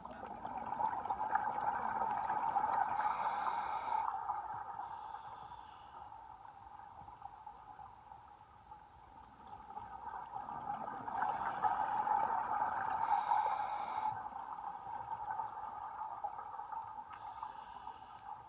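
A scuba diver breathing through a regulator underwater: two slow swells of bubbling exhalation about ten seconds apart, with short high hisses from the regulator.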